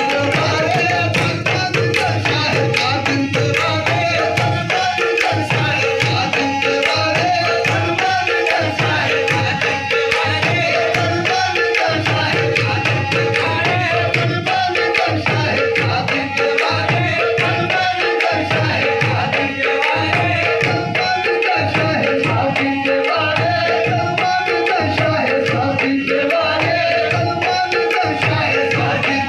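Qawwali music: tabla drumming with a steady held harmonium chord, singing voices and hand clapping on the beat.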